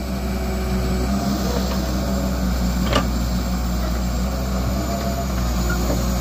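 Heavy vehicle engine running at a steady speed, with one sharp knock about three seconds in.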